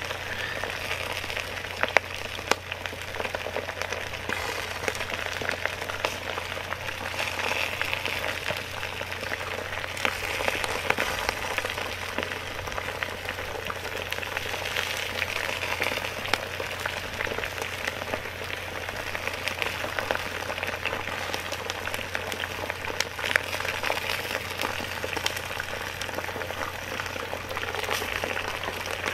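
Onions and oil frying in a hot cast-iron cauldron over a wood fire: a steady sizzle with scattered crackles and pops.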